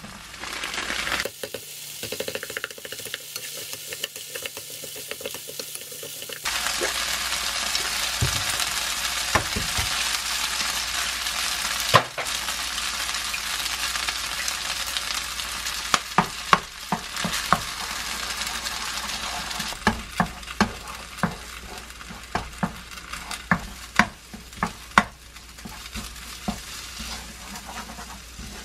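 Konjac fried rice sizzling in a hot nonstick wok as it is stirred, the sizzle getting louder about six seconds in. In the second half, sharp knocks of the spatula against the pan are heard as two eggs are mixed into the rice.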